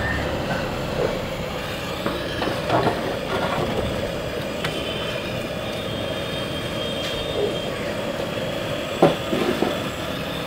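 Soaked rice being tipped from a metal bowl into a large aluminium pot of hot water, with a few short metal clinks and knocks over a steady rumbling noise.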